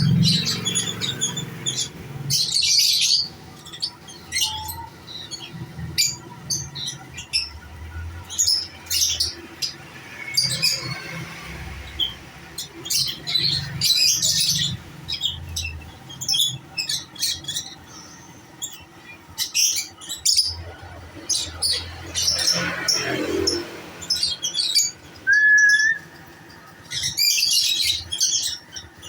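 Many caged lovebirds chirping and calling in a constant stream of short, high-pitched calls, with a low hum underneath.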